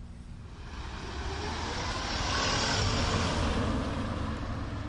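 A vehicle passing by: a rushing sound that swells from about half a second in, is loudest past the middle, and fades near the end, over a steady low rumble.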